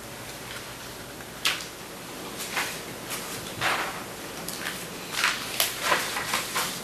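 Sheets of paper rustling and being handled on a table, a string of short, sharp rustles that come more often toward the end.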